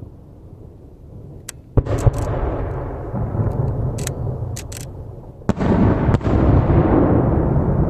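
Aerial fireworks shells bursting: two heavy bangs, about two seconds in and again about five and a half seconds in, each rolling on in a long rumble, with sharp crackling pops between them.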